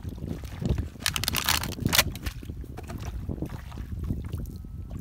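Splashing and sloshing of shallow muddy water as a person wades and works with their hands in it, loudest in a burst about a second in, over a steady low rumble of wind on the microphone.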